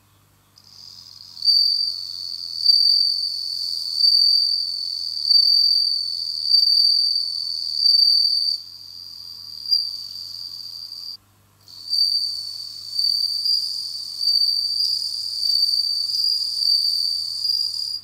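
Male suzumushi (Japanese bell cricket, Meloimorpha japonica) singing with raised wings: a clear, high ringing trill whose notes swell and fade in a repeating pattern about once every second and a quarter. It breaks off briefly about eleven seconds in, then resumes.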